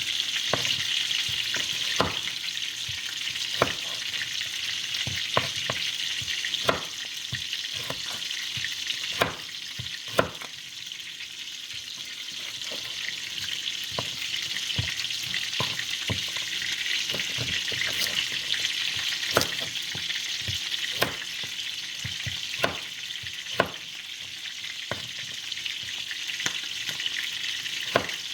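Chicken pieces frying in oil in a pot for browning, a steady sizzle, with sharp knocks every second or two.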